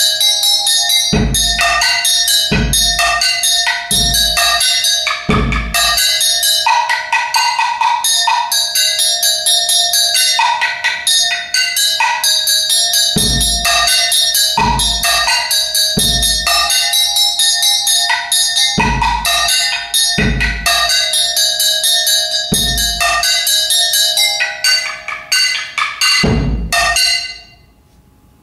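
Solo multiple-percussion playing: a fast, dense stream of sharp strikes on metal instruments over a steady ringing tone, with a deep bass-drum thump coming in now and then. The playing thins out and stops near the end, leaving a faint ring.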